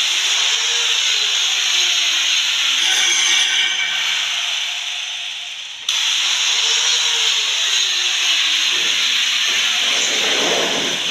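A loud, steady hiss with a faint tone that rises and then slowly falls. It cuts off and restarts abruptly about six seconds in, repeating the same pattern, and a rougher, lower noise joins near the end.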